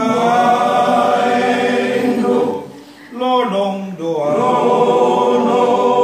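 Men's choir singing in parts without accompaniment: a long held chord, a short break about two and a half seconds in, then another held chord.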